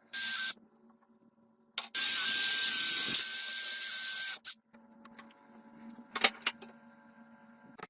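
Two bursts of hissing spray from a pressurised nozzle: a short one at the start, then a longer, louder one of about two and a half seconds with a faint steady whistle. A couple of sharp clicks follow near the end.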